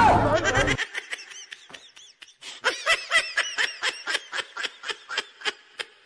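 A loud blast of noise cuts off abruptly under a second in. It gives way to laughter: a rapid run of 'ha-ha' pulses that starts faintly and grows louder about two and a half seconds in.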